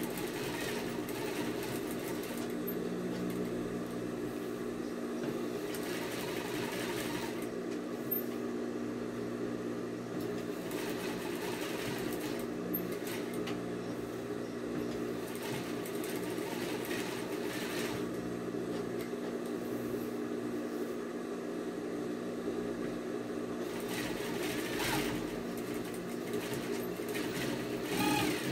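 Sewing machine stitching a long seam at a steady speed, an even, unbroken running hum.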